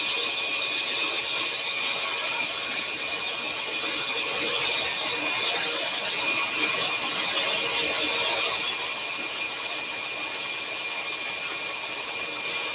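Axminster Trade AT406SS scroll saw running steadily, its fine blade reciprocating as it cuts through a thin wooden panel, with the workshop dust extractor whirring along with it. The sound drops slightly about three quarters of the way through.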